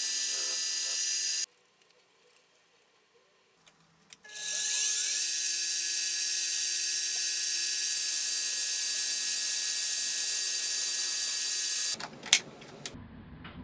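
Benchtop milling machine spindle running with a steady high whine as a countersink bit cuts bolt-head recesses in an aluminum block. It cuts off about a second and a half in, spins back up with a rising whine around four seconds, runs steadily, then stops abruptly near the end, followed by a few light clicks.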